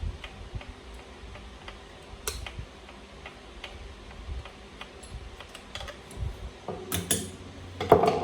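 Light, irregular clicks and ticks of an Allen wrench turning small screws on a 1/5-scale gas RC truck. A cluster of louder clicks comes near the end, then a sharper knock.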